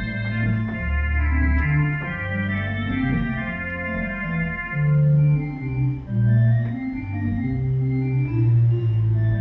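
Allen 600 Series digital church organ playing sustained chords over deep bass notes, the chords changing every second or so. It swells loudest about halfway through.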